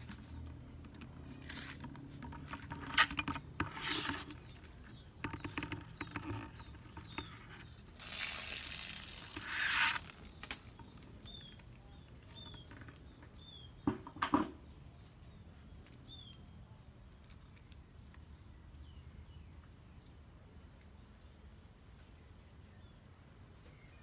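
Handling noises: clicks, knocks and rustling as a plastic bucket is moved about among dry undergrowth, with a louder rustle lasting about two seconds near the middle and a double knock a little later. After that, short falling bird chirps repeat a few times over a steady high hum.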